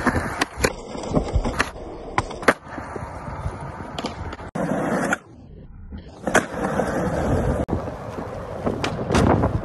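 Skateboard wheels rolling on smooth concrete, broken by a series of sharp clacks as the board's tail pops and the board lands during flatground tricks. The rolling drops away briefly in the middle, then resumes.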